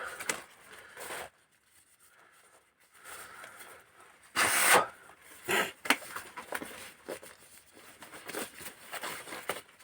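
Hand tools and metal engine parts clicking and knocking during work on a VAZ Priora 16-valve engine's camshaft and its bearing caps, with a louder scraping burst about four and a half seconds in, another shortly after, and many small clicks near the end.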